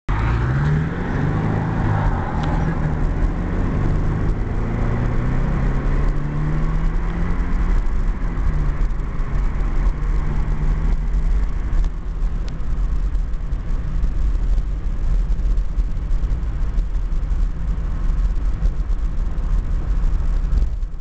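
Subaru Impreza 2.5RS's flat-four engine heard from inside the cabin, accelerating through the gears. Its note climbs and drops back at each shift over roughly the first ten seconds, then settles into steady running with a low road rumble.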